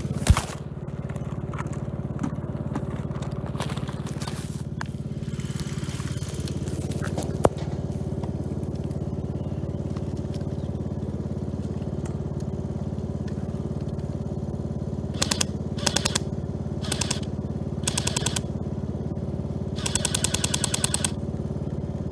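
Riding lawn mower engine idling steadily throughout. A sharp thump comes right at the start and a smaller knock about seven seconds in, and in the second half there are several short bursts of rapid, evenly spaced clicks, like airsoft guns firing on full auto.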